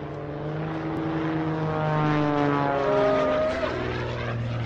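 Propeller engine of an aerobatic plane flying past: a steady drone, louder toward the middle, whose pitch drops about three and a half seconds in as it goes by.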